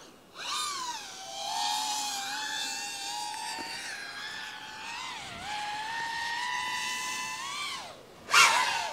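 FPV quadcopter's electric motors and propellers whining in flight, the pitch rising and falling with the throttle. The loudest moment is a short burst of throttle about eight seconds in, its pitch sliding down as it lets off.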